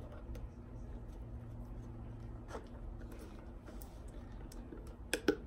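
A few faint taps and clicks of a cardboard mailing tube being handled, one about halfway through and two close together near the end, over a low steady room hum.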